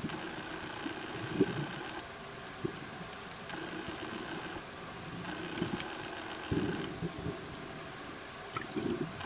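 Underwater sound of a scuba diver's regulator breathing: a hissing draw on each inhale, alternating every couple of seconds with bubbly rumbles as the diver exhales.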